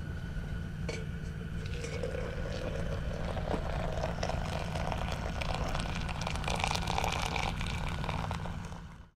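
Hot water poured from a steel pot into a stainless steel coffee pot, the pouring rising slowly in pitch as the pot fills, starting about a second in and fading just before the end. A steady low hum runs underneath.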